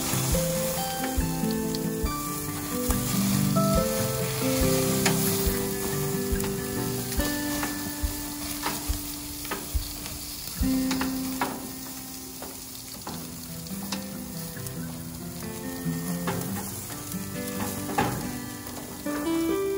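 Beef ribs sizzling on a hot grill over flaring flames, with a few sharp clicks of metal tongs against the grate as the ribs are moved. Background music with held, stepping notes plays underneath.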